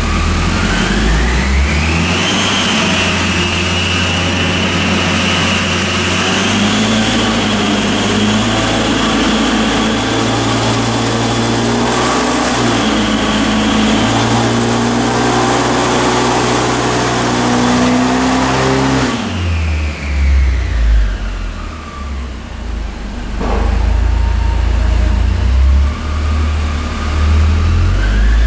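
A 2007 Audi S3's turbocharged 2.0-litre four-cylinder, breathing through an aftermarket Milltek exhaust, pulling at full throttle on a chassis dyno: the revs climb steadily for about nineteen seconds over a high steady whine. Then the throttle shuts, the revs fall away sharply, and it runs unevenly at lower revs for the rest.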